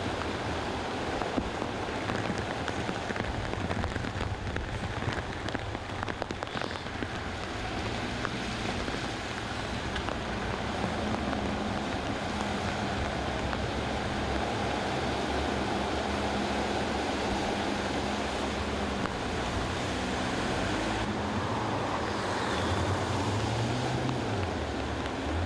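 Cars driving slowly through deep floodwater, the water rushing and splashing around them in a steady wash, with engines humming underneath.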